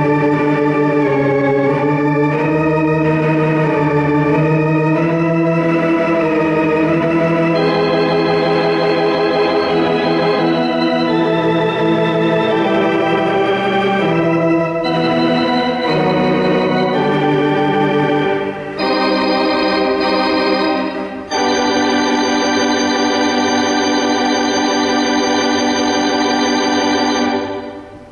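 Theatre organ playing a slow melody over sustained chords, ending on one long held chord that is released near the end.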